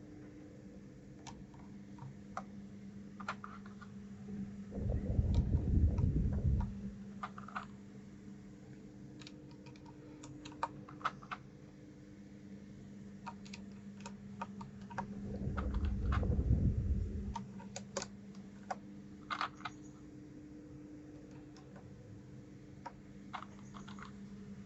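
Mechanical keyboard keys and keycaps clicking in scattered, irregular presses over a steady low hum. Two louder low rumbles come through, about five seconds in and again about sixteen seconds in.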